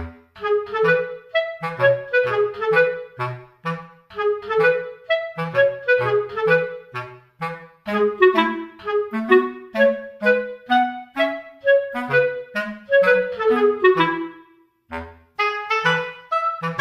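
Background music: a light, bouncy melody of short pitched notes over a bass line, in an even rhythm, with a brief pause near the end.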